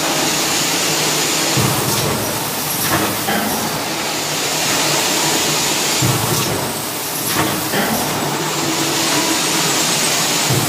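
Cup water filling machine running: a steady mechanical clatter with a low thump about every four and a half seconds and a long hiss between the thumps.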